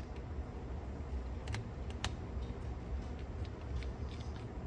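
Small clicks and ticks of a screwdriver turning a screw into the plastic-and-metal tape transport of a Sony TC-K890ES cassette deck, with two sharper clicks about a second and a half and two seconds in, over a steady low hum.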